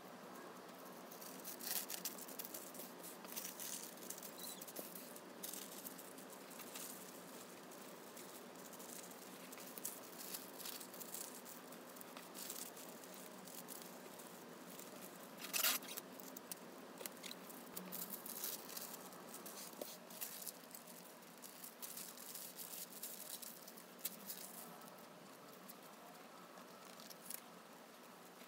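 Tissue paper rustling and crinkling under hands as it is smoothed and folded, with light taps and scratches of stickers being set down on it. One sharper tap a little past the middle.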